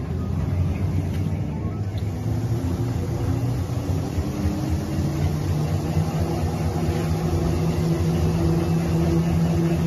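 FJ-B1900 paper rewinding machine running, its motors and rollers winding the paper web onto a new roll with a steady low hum and a few held tones, growing slightly louder in the second half.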